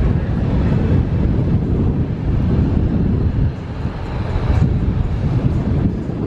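Steady low rumble of a car driving along a busy street, with road and traffic noise.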